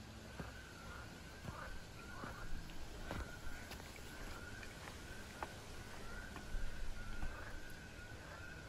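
Footsteps on a dirt trail with twigs, an irregular scatter of soft steps and snaps, over a faint thin wavering high tone that holds throughout.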